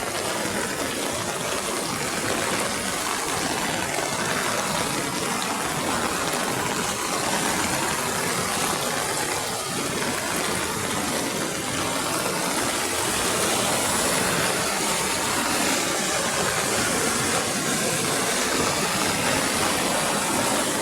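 Water rushing steadily without a break, a continuous hiss-like torrent.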